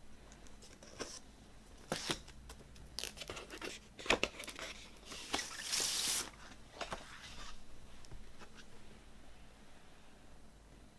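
Handling of a vinyl LP's paper and cardboard packaging: scattered taps, clicks and crinkles, with a longer sliding swish about five to six seconds in. It dies down to soft rustling.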